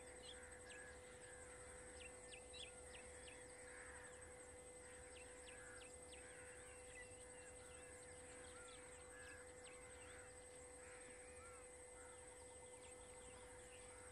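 Faint forest ambience: many short bird chirps and calls scattered throughout, over a steady high-pitched hum.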